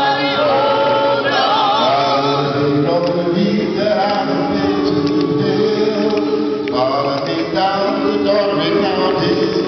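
A group of voices singing a freedom song together without instruments, the singers' voices blending with audience members singing along.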